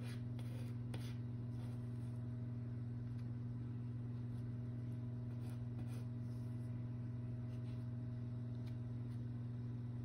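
A low, steady electrical hum, with a few faint, soft scrapes of a small plastic spatula scooping thick pastel paste off wax paper.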